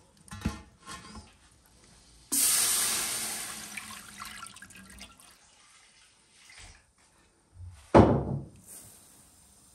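Water pouring and splashing, starting suddenly and trailing off over about three seconds. A single loud thump follows near the end.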